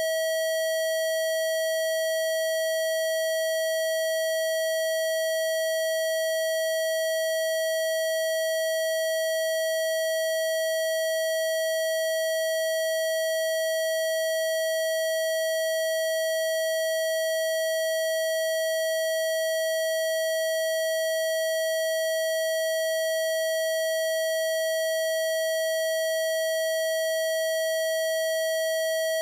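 A single steady electronic tone, mid-pitched and unbroken, holding one pitch throughout: a Rife frequency played for parasite treatment.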